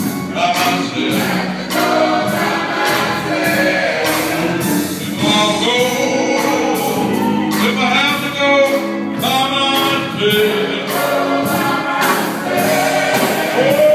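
Gospel singing by a group of voices, with a steady beat under it.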